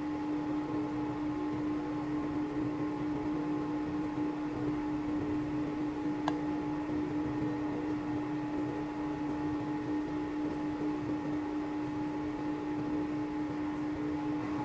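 Steady electric machine hum with one strong constant mid-pitched tone and fainter higher tones. One light sharp click about six seconds in.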